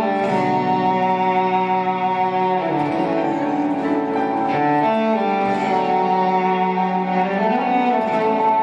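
Slow, sombre bowed-string music: long held violin and cello notes that change chord every few seconds.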